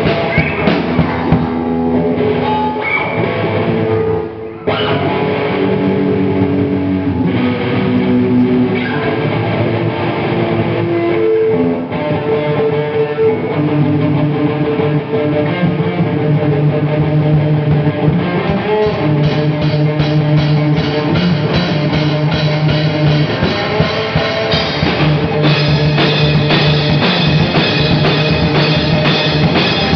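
Rock band jamming live: electric guitar, bass guitar and drum kit playing together, with a short break in the sound about four and a half seconds in.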